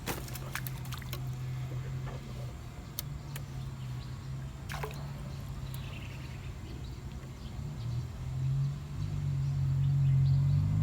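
A low, steady engine hum that grows louder near the end, with a few sharp clicks and light water sounds.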